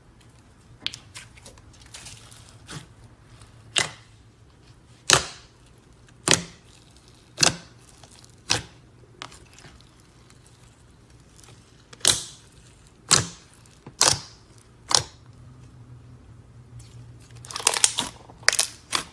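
Slime being squeezed and pressed by hand, giving a series of sharp pops about once a second, with a quick run of crackling near the end.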